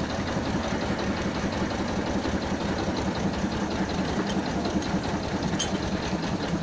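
A small engine running steadily with a low, even hum as a small rail vehicle rolls slowly along narrow-gauge track.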